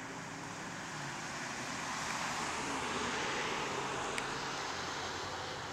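A car passing on the road: a steady rush of tyre and engine noise that swells to its loudest about three seconds in and then fades.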